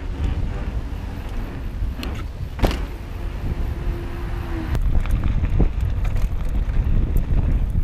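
Wind buffeting the microphone over the rolling noise of a mountain bike coasting down a paved road. About five seconds in it changes to the louder rattle and crunch of the bike on a gravel singletrack, with many small ticks and clicks.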